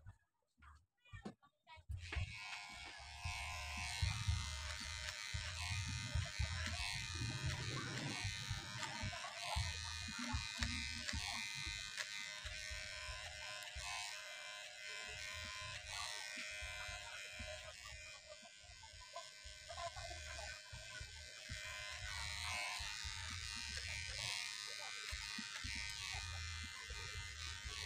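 Electric hair clippers buzzing steadily as they cut short hair, worked over a comb; the buzz starts about two seconds in.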